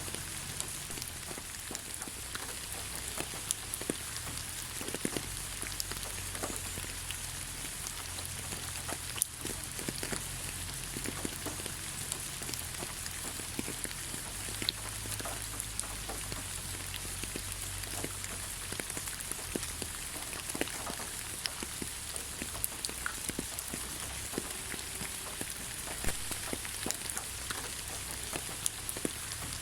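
Steady rain falling on the ground: an even hiss with many separate drops ticking and splashing close by, over a low rumble.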